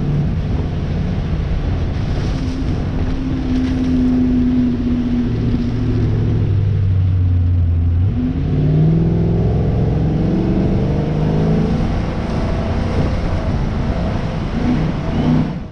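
Diesel engine of heavy logging equipment running hard, its pitch rising and falling as it revs up and down under load.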